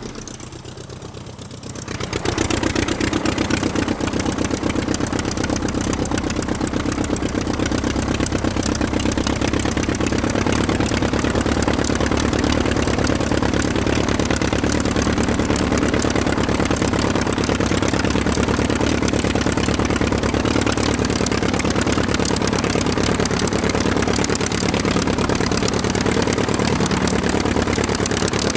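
An engine running steadily with a fast, even pulse. It drops away briefly at the start and comes back up about two seconds in.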